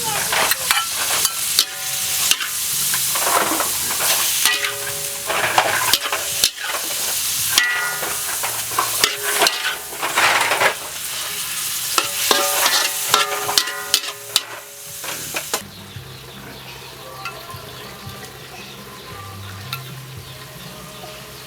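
Food sizzling and frying in a hot pan while it is stirred, with repeated scraping strokes and short metallic rings from the utensil against the pan. About fifteen seconds in, the sizzling drops to a much quieter, softer sound with a low hum.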